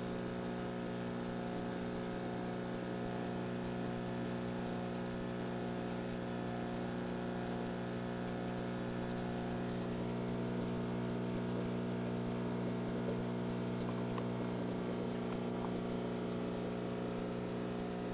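Steady low hum with several overtones, under a faint, irregular patter of soft clicks.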